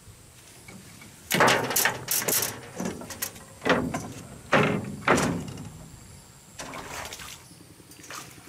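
Footsteps and knocks on a hollow wooden boat deck: a run of loud, sudden thumps over about four seconds, then a fainter one.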